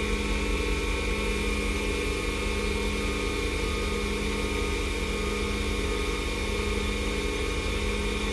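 Wood lathe motor running steadily at high speed with an even hum and hiss, spinning a padauk pen blank during friction polishing with abrasive polish.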